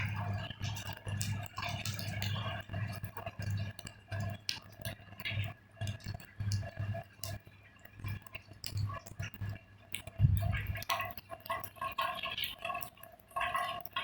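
Rainwater dripping after a thunderstorm as light rain tapers off: many irregular sharp ticks and drips, over a low, uneven hum.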